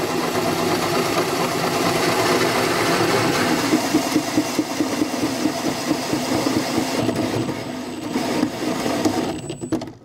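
Power drill running a 2-1/8 inch Milwaukee hole saw through the truck's aluminum bed wall and its spray-on bedliner: a steady grinding whir with an uneven rasp as the teeth cut. The drill stops just before the end.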